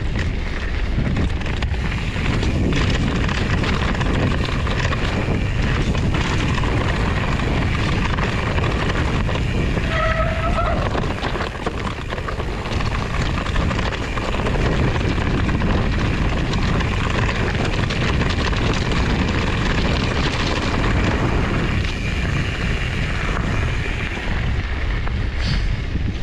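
Wind on the microphone and the steady rumble of a Trek Farley 7 fat bike's tyres rolling over a stony trail while riding. A short squeak comes about ten seconds in.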